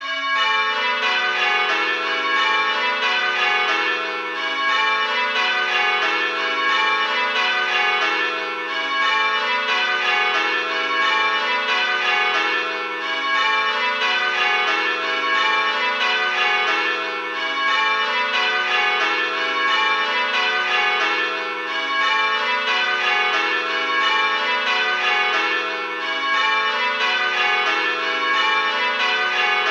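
Six church bells, sounded by a bell-ringing simulator, struck one after another in rows that step down in pitch from treble to tenor. There is a slight break about every four seconds, the handstroke gap. The ringing starts suddenly.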